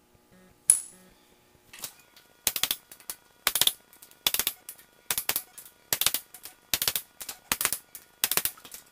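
Ratchet head of a torque wrench clicking in short rapid bursts, about one burst every 0.8 s, as it is swung back between pulls. The wrench is tightening a Ford 400 V8's cylinder-head bolts to their final 105 torque stage. A single sharp click comes about 0.7 s in.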